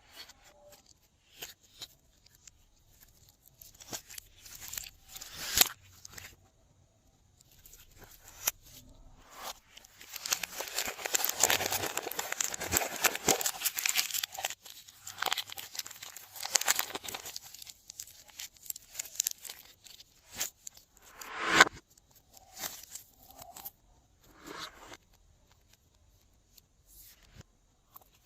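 Glossy slime being stretched, pressed and squished by hand, making sticky crackles and pops. A dense run of crackling comes in the middle, and sharp pops come at about 5 and 21 seconds in.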